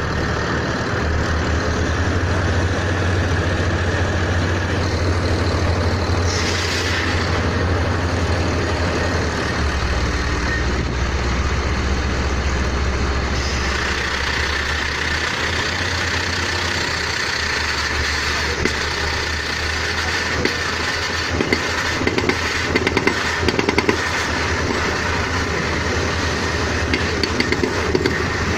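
Engine of a pneumatic drilling rig running loudly and steadily. From about twenty seconds in, it is joined by fast, uneven rattling knocks.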